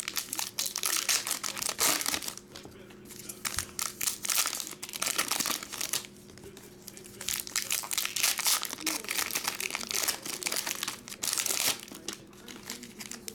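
Foil trading-card pack wrappers being torn open and crinkled by hand, in stretches of crackling broken by short pauses.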